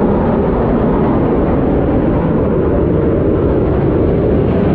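Steady aircraft engine roar.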